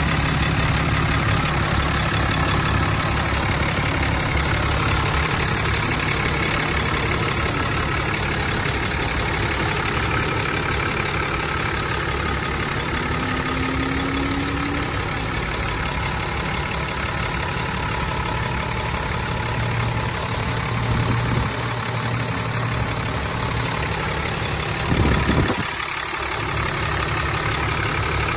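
Cummins 6.7-litre turbo-diesel inline-six idling steadily under the raised hood, with a brief low bump about three seconds before the end.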